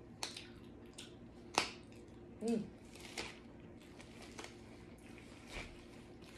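Disposable gloves being peeled off the hands: a few sharp snaps of the glove material, the loudest about one and a half seconds in, with soft rubbing and rustling between them. A brief pitched sound comes about two and a half seconds in.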